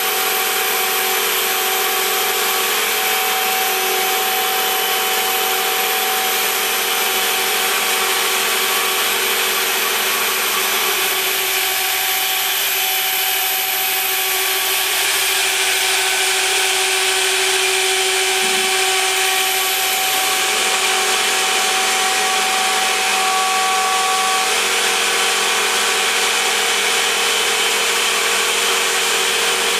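MillStep PA1050 CNC engraving machine at work: its high-frequency spindle runs with a steady high whine while a 60° engraving bit cuts lines into the workpiece, with a continuous cutting noise.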